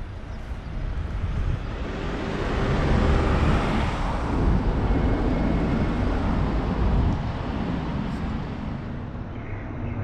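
A motor vehicle passing along the street: a rushing engine-and-tyre noise that grows louder about two seconds in, stays up for several seconds and fades away about seven seconds in, over a steady town-street background.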